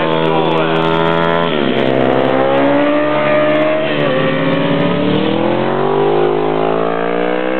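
Pit bike engines running at high revs as the bikes race past. The engine note drops sharply about a second and a half in and then climbs steadily, dips again near the middle and rises once more.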